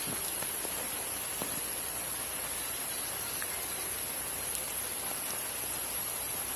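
Steady rain falling, an even hiss with a few faint drip-like ticks and a thin, steady high tone above it.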